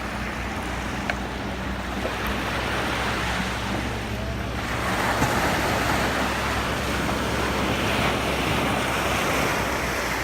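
Sea waves breaking and washing up a beach, the surf swelling louder about five seconds in.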